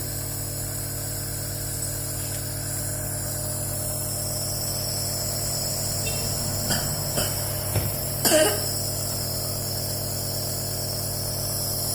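Compressor nebulizer running with a steady hum as it nebulizes medicine. A few short sounds break in past the middle, the loudest a brief vocal sound with a falling pitch about eight seconds in.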